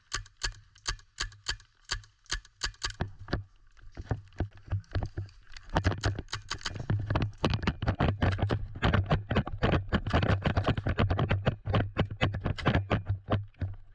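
A rapid, irregular run of short sharp clicks and knocks, a few a second at first, then denser and louder from about six seconds in, over a low steady hum.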